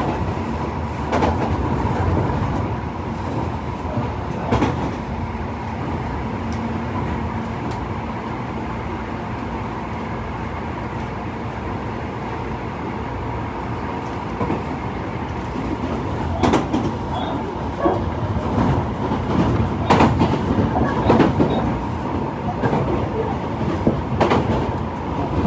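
Tobu 50090 series electric train running on the rails with a steady hum, its wheels clacking over rail joints, the clacks coming thicker in the second half.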